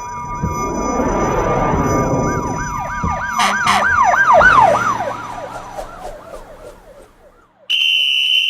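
A siren wailing in quick, regular rising-and-falling sweeps that speed up and then fade away. Near the end a steady buzzer tone starts abruptly.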